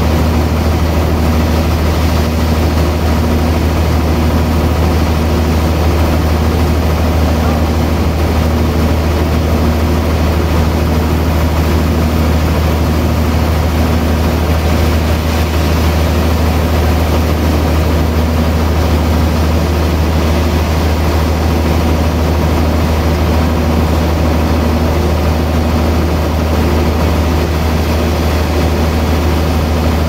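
Large band sawmill running steadily while its blade cuts lengthwise through a big log: a loud, even machine drone with a deep hum underneath.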